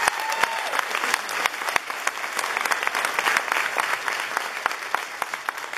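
Audience applauding after a musical number, many hands clapping, gradually dying down near the end.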